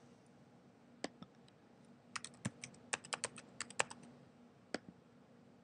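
Faint computer keyboard typing as a word is typed: about a dozen quick keystroke clicks packed into two seconds, with a few single clicks before and after.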